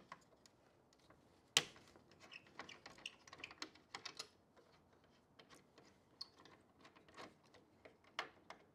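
Faint, irregular small clicks and ticks of a screwdriver working a screw out of the TSS sensor's mounting bracket on a plastic grille, with one sharper click about a second and a half in.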